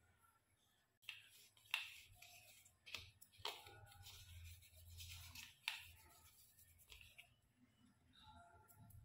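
Faint scraping and a few sharp taps on a stainless-steel mixer-grinder jar as ground sugar and cardamom are scraped and knocked out of it by hand.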